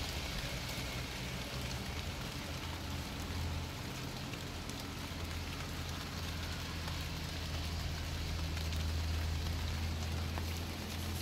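Steady rain falling, with scattered drops ticking, over a steady low hum.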